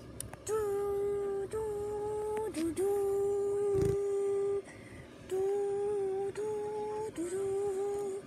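A person humming a string of long held notes, nearly all on one pitch, with short breaks between them. A single low thump comes about four seconds in.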